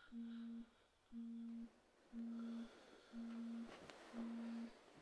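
Smartphone vibrating in its buzz pattern: a low buzz about half a second long, repeating once a second, five times. Faint rustling of bedding comes in near the end.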